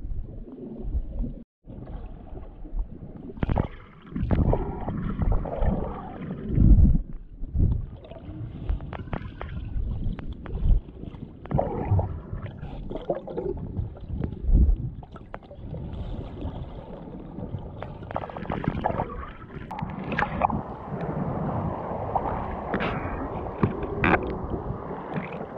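Water sloshing and gurgling in choppy sea, with irregular splashes and knocks, more continuous over the last few seconds.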